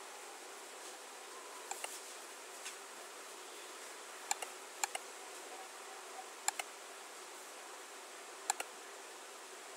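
Computer mouse clicking about five times, each click a quick double tick of press and release, over a steady microphone hiss.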